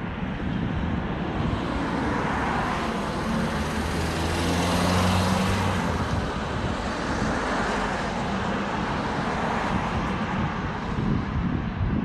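Road traffic on a bridge: a car passes close by, its tyre noise and low engine hum swelling to a peak about five seconds in and fading away, over a steady wash of traffic noise.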